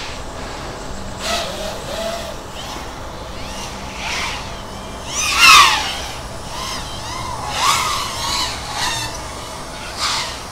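FPV racing quadcopter motors whining as the quads fly around the course, the pitch climbing and dropping with throttle. The loudest is a rising then falling sweep about five and a half seconds in, as one passes close.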